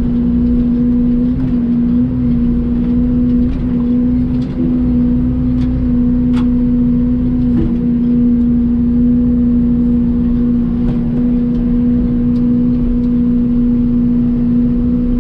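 Mini excavator engine running steadily at a constant pitch while grading, with a few faint knocks scattered through.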